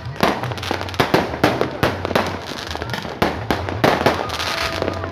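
Fireworks going off at a New Year celebration: sharp bangs and pops in quick, irregular succession, several a second, some overlapping.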